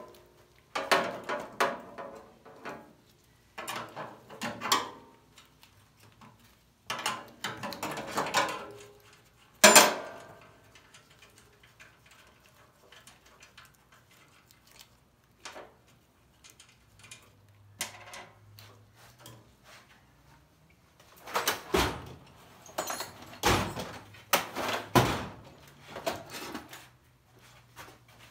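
Irregular clanks, knocks and rattles of wheel hardware and hand tools being handled while a wheel is taken off. They come in bursts over the first ten seconds, ending in a sharp knock, then go quiet for about ten seconds before more clanking near the end.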